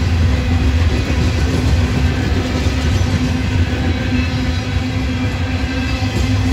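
Loaded coal hopper cars of a freight train rolling past on steel rails: a steady, deep, unbroken rumble of wheels on track.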